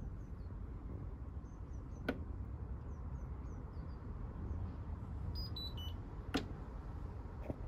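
Indesit tumble dryer control panel being switched off and back on: a low steady hum underneath, a sharp click about two seconds in, a short run of faint falling electronic beeps past the middle, and another click soon after.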